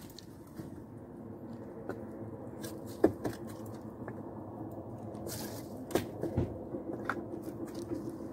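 Split firewood logs knocking together as they are pulled from a woodpile and gathered into an armload: a sharp wooden clack about three seconds in and a few more near the end. Under them a faint steady rumble of a passing train.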